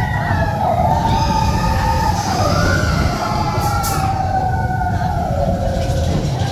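Mine-train roller coaster rumbling along its track, with riders whooping in long, wavering cries that slowly fall in pitch over it.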